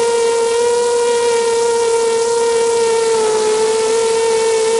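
ZMR250 racing quadcopter's brushless motors and propellers whining steadily in flight, recorded by the camera mounted on the quad, over a steady hiss of wind. The pitch dips slightly about three seconds in.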